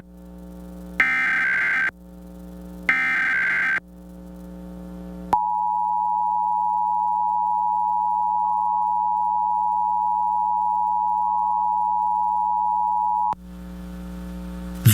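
Emergency Alert System test tones as broadcast on TV. First come two short warbling bursts of the SAME digital header, about a second each. After a short pause the EAS attention signal follows: a steady two-tone beep held for about eight seconds, then cut off suddenly. A faint low hum runs underneath.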